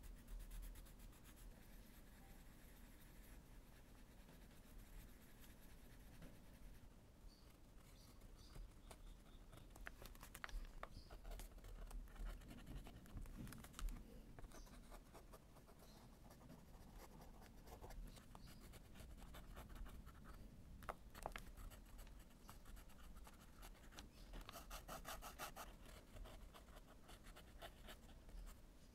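Faint scratching of pencil and fountain-pen nib on journal paper: a coloured pencil shading, then a Lamy fountain pen writing handwriting in short strokes with small clicks.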